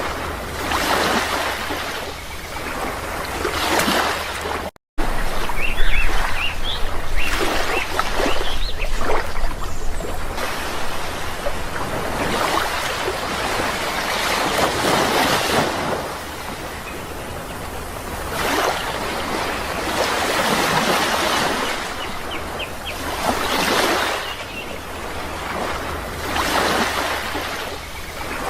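Sea waves washing onto a shore in swells that rise and fall every few seconds, with a few faint bird chirps. The sound cuts out for a moment about five seconds in.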